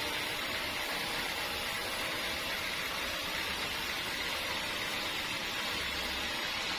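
Sawmill machinery running steadily, a continuous even hissing noise with no breaks.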